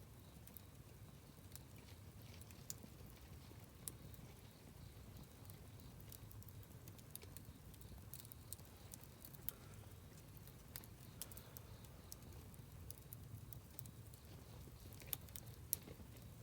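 Campfire burning faintly: burning wood gives off scattered sharp crackles and pops over a low, even rumble, with two louder pops about a second apart near the end.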